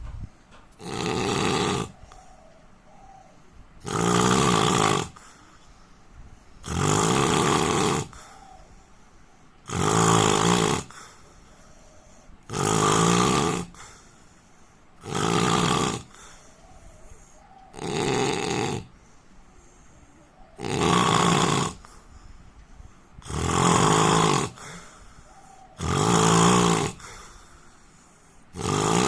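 A man snoring in his sleep: about eleven loud snores, each about a second long, repeating every two and a half to three seconds in a regular rhythm.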